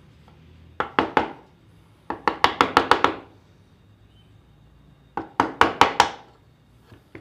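Quick runs of light strikes on a small chisel, cutting a chamfer around the edge of a drilled hole in a wooden jig. About three strikes come about a second in, a run of about eight just after two seconds, and about six more near five seconds.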